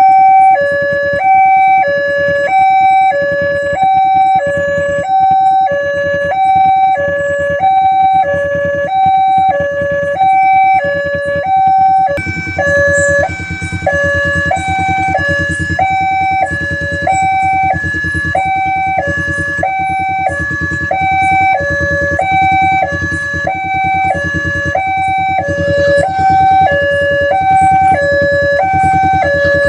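Railway level-crossing warning alarm sounding: an electronic two-tone siren alternating between a lower and a higher pitch about once a second.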